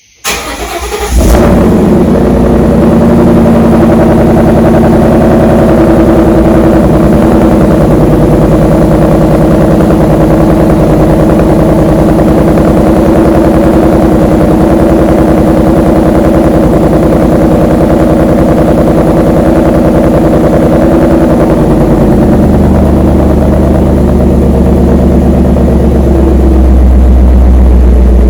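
2014 Mustang GT's Coyote 5.0 V8 starting through Shelby GT500 axle-back mufflers: it cranks and catches within the first second, then idles steadily. About twenty-two seconds in the idle settles lower, with a deeper exhaust note.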